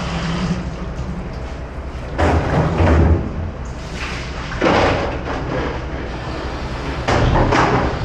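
Dishwashing at a stainless-steel sink: three bursts of knocking and clatter as plastic buckets are handled in the sink, over a steady low hum.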